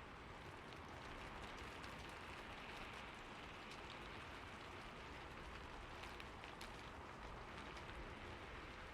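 Rain falling on a rooftop: a steady, fairly quiet hiss of rain with scattered sharper drop ticks, a few more of them around the middle.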